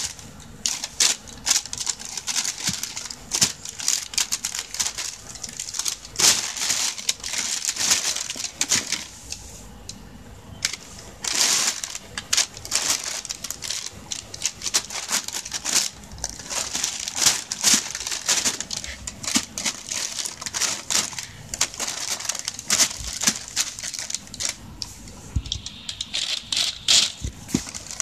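Thin plastic shopping bag crinkling and rustling in irregular bursts as a cat paws at it, treads on it and pushes its head inside, with a short lull about ten seconds in.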